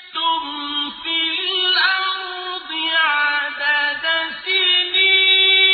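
Quran recitation in Arabic: a single voice chanting a verse in melodic tajweed style, with gliding phrases, then a long held note from about five seconds in.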